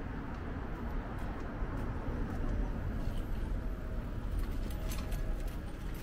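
Steady low rumble of city street traffic along a wide multi-lane road, with a few light clicks about four and a half to five and a half seconds in.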